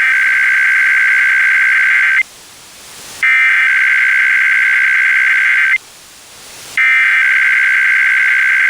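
Emergency Alert System SAME header: three bursts of buzzing digital data tones, each about two and a half seconds long with a second's gap between them. This header opens a Required Weekly Test.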